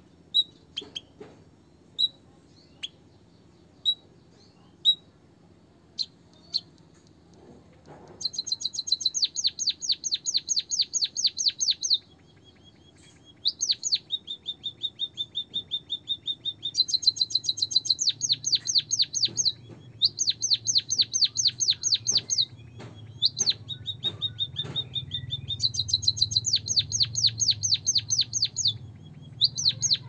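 White-headed munia singing: single sharp chirps about once a second, then from about eight seconds in, fast runs of repeated notes at about five a second alternating with steady trills.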